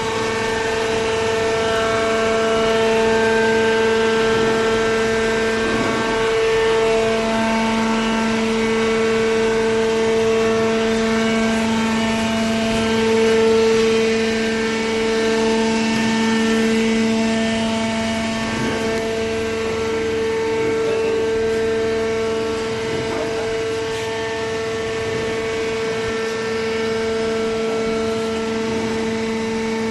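Horizontal hydraulic cardboard baler running, its motor and hydraulic pump giving a loud, steady whine with several fixed tones. A lower hum joins about six seconds in and holds.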